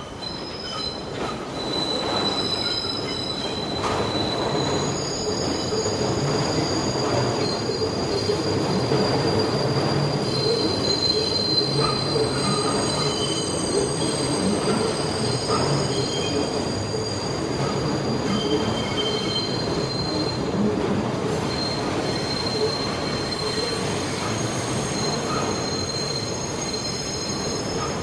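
New York subway train running on an elevated steel track: a steady rumble of the wheels on the rails, with high-pitched wheel squeal that comes and goes throughout. It grows louder over the first couple of seconds, then holds.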